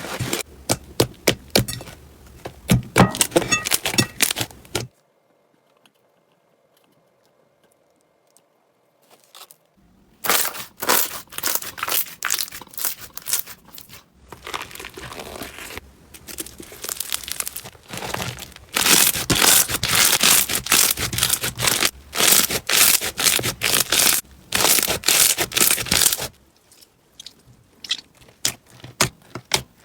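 Slime being handled and pressed, making dense crackling and popping. The crackling stops for about five seconds, then resumes and grows denser and louder before thinning to scattered clicks near the end.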